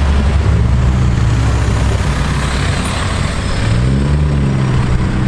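Nissan S13's engine with a deep, steady exhaust drone as it drives past and pulls away. About four seconds in, a second car accelerates past, its engine note rising in pitch, over road noise.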